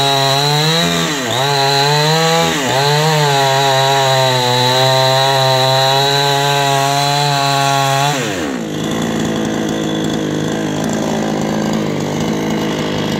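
Two-stroke chainsaw running at high revs while cutting into a thick tree trunk, the engine note dipping sharply twice in the first few seconds as the chain bogs in the wood. About eight seconds in the revs fall away and the saw runs on lower and rougher.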